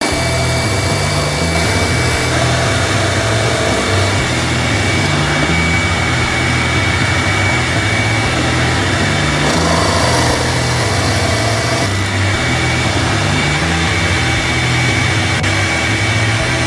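Drill press running steadily, spinning a homemade spindle sanding drum against the edge of a pine board, with a shop vacuum running on a dust hose at the drum; a steady high whine sits over the motor hum.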